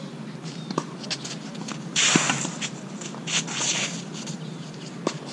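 Tennis rally: a few sharp pops of racquet strikes and ball bounces spaced a second or more apart, with a loud burst of shoes scuffing across the court about two seconds in and softer scuffs after.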